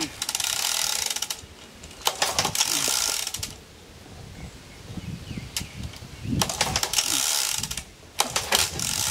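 Recoil starter on a 1945 Waukesha ICK auxiliary power unit pulled about four times. Each pull is about a second of rapid ratcheting clatter as the engine turns over, and it does not catch.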